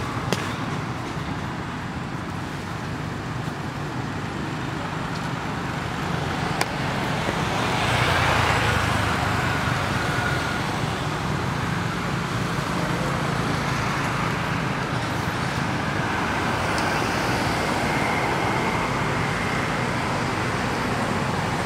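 Steady outdoor background rush with a low hum, of the distant-road-traffic kind. There is a sharp click near the start and another about six and a half seconds in, and the noise swells briefly about eight seconds in.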